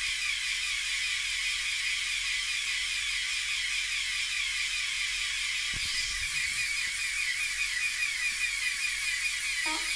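LEGO Technic motor-driven pneumatic air compressor running, a steady rattling whir as it pumps air into a toy bagpipe's bag. A low thump sounds about six seconds in.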